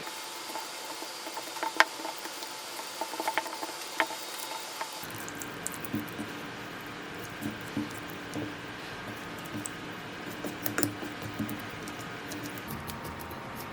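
Food-preparation sounds: scattered light clicks and knocks of utensils and ingredients being handled, with a sudden change in the background about five seconds in.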